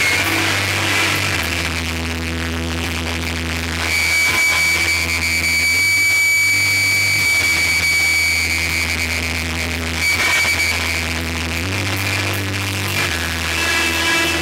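Live electronic rock band playing loud, with a deep bass line that changes note every second or two. A high note is held from about four seconds in until about ten seconds in.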